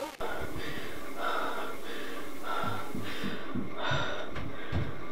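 A young woman breathing heavily in short, gasping breaths, about one a second, over a steady background hiss.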